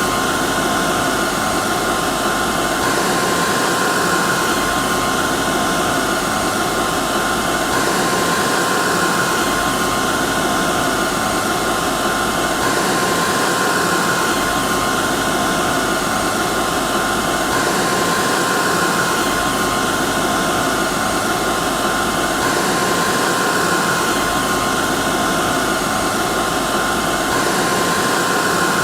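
Hair dryer running steadily: an even rush of air with a steady high whine, the recording looping about every five seconds.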